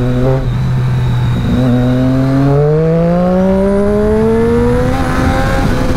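Triumph Daytona 675R's 675 cc inline three-cylinder engine through a Scorpion aftermarket exhaust, heard from the rider's seat. It holds a steady note for about two seconds, then rises steadily in pitch for about three seconds as the bike accelerates, and levels off near the end.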